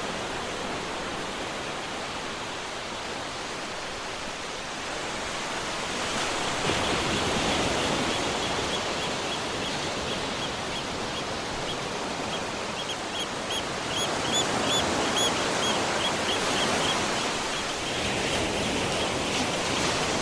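Heavy rain falling steadily, growing louder about six seconds in. Over the rain, a bird calls in a rapid run of short, high repeated notes from about seven seconds in until near the end, loudest past the middle.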